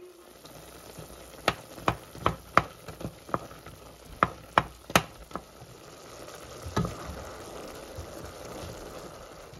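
Instant noodles bubbling in a pot of boiling water while a wooden utensil stirs them, knocking sharply against the pot about a dozen times in the first five seconds and once more a little later.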